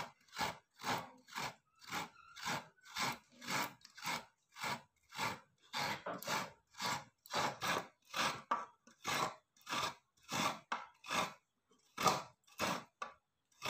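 Knife blade scraping fresh coconut flesh out of a halved coconut shell into a steel plate. The strokes are short and rasping, about two a second, with a short pause near the end.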